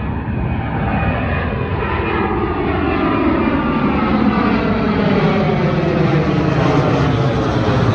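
Engines of an airliner taking off, growing steadily louder as it climbs out, with a set of tones that sweep slowly downward in pitch.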